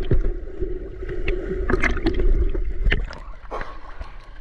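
Swimming-pool water heard through a submerged GoPro 11: a muffled low rumble with a steady hum and scattered sharp clicks and taps. The hum stops about three seconds in.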